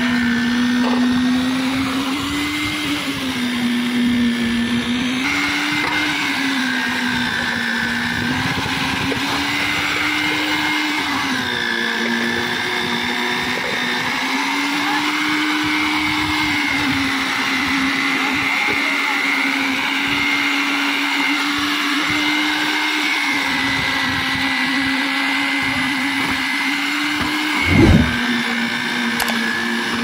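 Electric concrete needle vibrator's handheld motor running steadily, its pitch rising and dipping every few seconds as the poker is worked into the wet slab concrete. A single knock sounds near the end.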